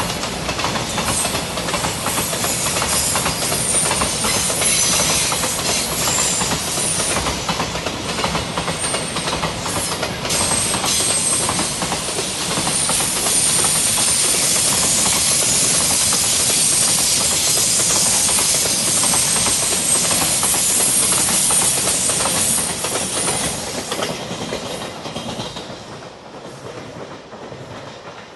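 Container flatcars of a JR Freight train rolling past, their steel wheels clattering over the rails, with a thin high whine that comes and goes. The sound fades away over the last few seconds as the end of the train goes by.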